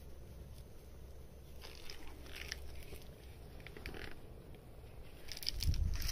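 Faint scattered crackling and rustling of a phone being handled while cats are petted. Near the end comes a louder low rubbing rumble with crackle as the microphone brushes against a cat's fur.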